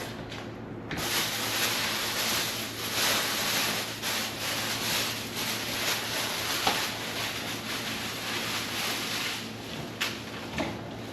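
Scrubbing or wiping during fridge cleaning: a cloth or sponge rubbing over a surface in uneven strokes, starting about a second in, with a couple of small knocks near the end.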